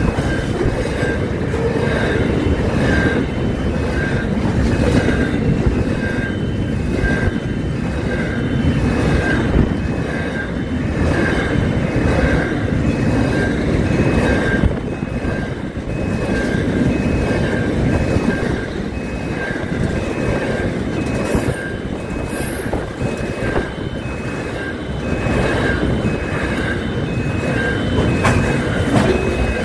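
Double-stacked container freight train passing close by at speed: steady rumble and clatter of wagon wheels on the rails. A short high tone repeats about once a second throughout.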